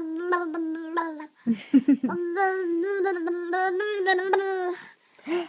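An 8-month-old baby's vocalizing: long hum-like tones held at one steady pitch, broken by a short low, gravelly grunt about one and a half seconds in, then a second long held tone.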